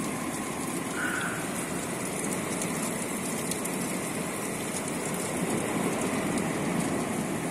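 Heavy mountain downpour, a steady hiss of rain falling on the forest around the hut.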